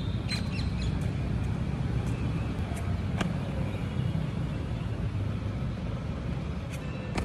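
Outdoor background noise: a steady low rumble, with a few faint sharp clicks, one clearer about three seconds in.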